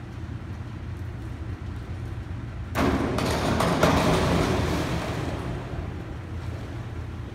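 A springboard dive: the board bangs at takeoff about three seconds in, and the diver's entry splash follows about a second later, echoing in the pool hall. A steady low hum runs underneath.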